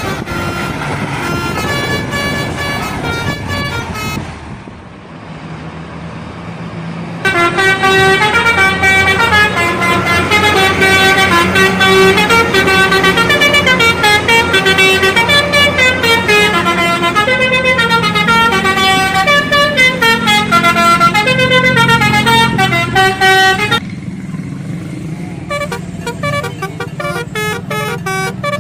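Indonesian bus 'telolet' multi-tone horn playing a fast tune of changing notes, loud from about seven seconds in and stopping abruptly near the end, with fainter horn notes at the start. A bus engine hums low underneath.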